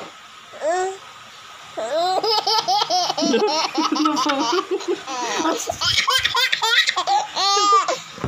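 A baby laughing: one short sound just under a second in, then from about two seconds in a long run of quick laughs that goes on almost without a break to near the end.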